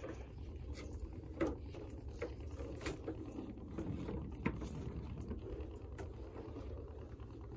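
Wet rope of a dol net being hauled by hand and piled onto a wooden boat deck: scattered soft knocks and slaps, over a low steady rumble.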